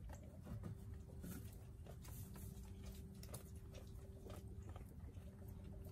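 Sheep pulling hay from a wooden feeder and chewing it: faint, irregular rustling and crunching, over a faint steady hum.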